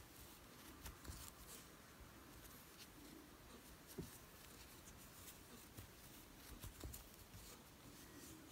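Near silence with faint, irregular light clicks and rustles of a metal crochet hook working acrylic yarn.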